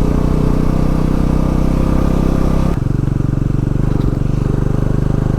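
A 220 cc motorcycle engine running steadily under way, with wind rushing over the microphone. A little under three seconds in, the engine note drops and the wind noise falls off suddenly.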